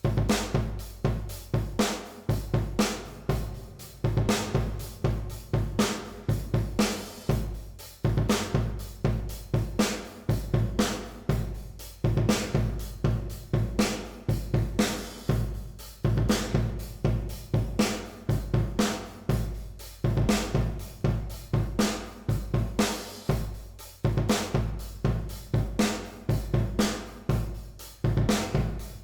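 Drum kit playing a steady groove of kick, snare, hi-hat and cymbals, treated with a digital reverb plugin, with each hit trailing off into a short reverb tail.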